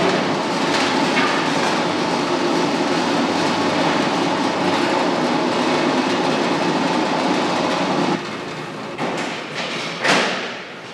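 Steady, dense mechanical clatter that drops away about eight seconds in, followed by a short loud burst of noise near the end.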